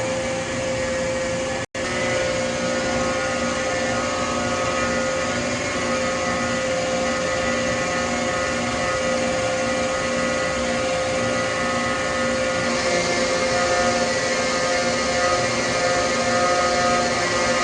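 Danfoss H1P045 axial piston hydraulic pump running on a test bench under load, a steady mechanical whine with several held tones. The sound cuts out for an instant a couple of seconds in, then carries on unchanged.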